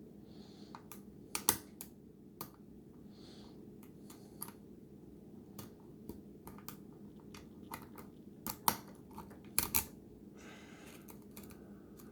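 Lock pick and tension wrench working the security pins of a Schlage pin-tumbler lock: irregular small metallic clicks, the loudest about a second and a half in and again a couple of seconds before the end, over a faint steady hum.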